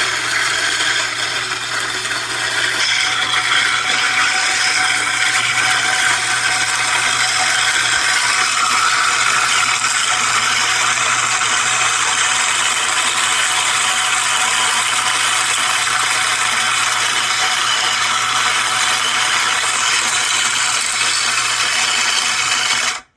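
Fellow Opus conical burr coffee grinder running steadily while grinding whole-grain scratch-and-peck chicken feed: a constant motor hum under a dense, even rattling grind of grain through the burrs. It cuts off suddenly near the end.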